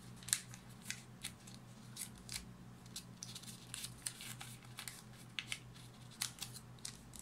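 Sheet of origami paper being folded and creased by hand: irregular short, sharp crackles and rustles as the folds are pressed down, over a faint steady hum.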